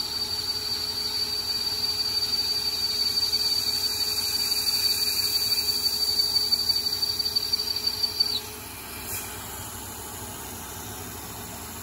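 Lathe cutting tool taking a rough turning pass along a D2 tool-steel roller at 340 rpm: a steady high-pitched whine from the cut over the hiss of spray-mist coolant. About eight seconds in the whine stops suddenly as the tool finishes the pass, leaving the spindle turning and the mist hissing.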